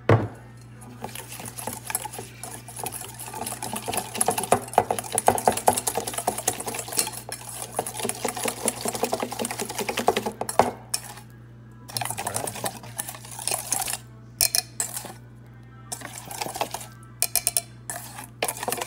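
Wire whisk beating an oil and dried ranch seasoning marinade in a stainless steel bowl, the wires rattling rapidly against the metal. The whisking runs steadily for about ten seconds, then goes on in shorter bursts with pauses between.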